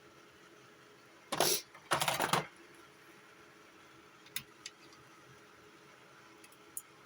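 Small workbench handling noises: two brief rustling scrapes about a second and a half in, then a few light clicks.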